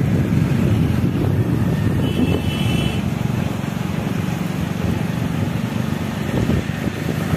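Motorcycle engine running at steady road speed, heard from the rider's seat with road noise. A short high beep sounds about two seconds in.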